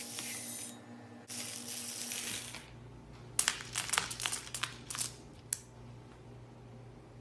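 Slime being handled: two hissy swishes in the first two seconds, then a run of sharp crackling pops and clicks that stops about five and a half seconds in.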